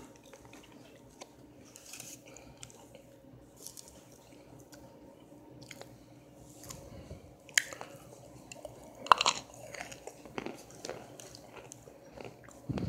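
Chunks of compressed cornstarch being bitten and chewed close to the microphone: irregular dry crunches and crackles, with the loudest bites about seven and a half and nine seconds in, and another near the end.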